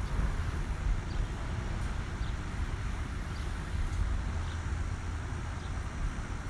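Outdoor background noise: a low, uneven rumble with a few faint, short high ticks scattered through it.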